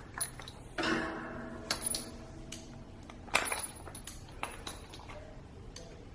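Metal parts and tools being handled during assembly: a knock about a second in that rings briefly, a louder knock a little past three seconds, and several light clicks and clinks in between.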